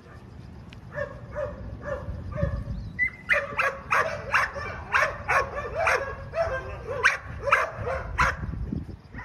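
A small Chihuahua barking. It starts with a few soft yips, then from about three seconds in gives a run of about a dozen sharp, high-pitched barks, roughly two a second, which stop about a second before the end.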